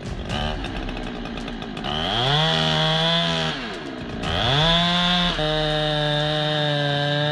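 Chainsaw revving up, held at high speed, easing off briefly, then revving back up and held at a steady high pitch while cutting the trunk.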